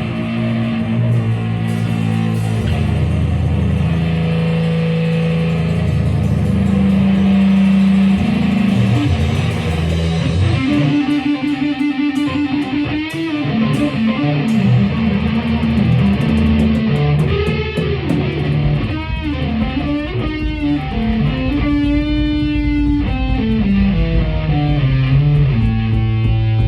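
Music led by guitar, with a bass line and a steady loud level; from about ten seconds in, a melody line bends and wavers in pitch.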